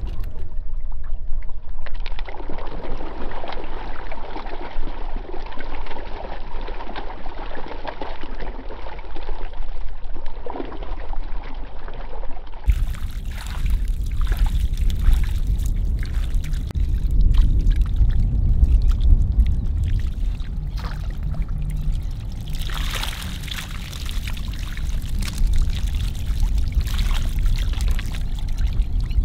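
Water splashing and trickling as live fish are handled in shallow water. About halfway through it changes to water sloshing and splashing as a fishing net full of fish is hauled into a canoe, over a steady low rumble.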